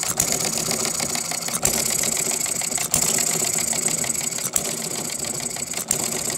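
Topsy Turvy inverted hit-and-miss model gas engine running: a fast, light mechanical clatter as it coasts, broken by a sharp firing bang about every second and a half.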